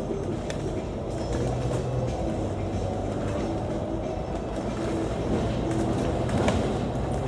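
Interior of a KMB double-decker bus under way: the diesel engine runs steadily with a low hum, over road rumble and light cabin rattles and clicks.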